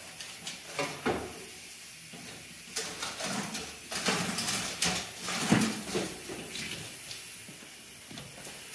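Scattered knocks, clicks and rattles as a wheeled epoxy crack-injection machine on its cart is turned around by hand; the loudest knock comes a little past the middle.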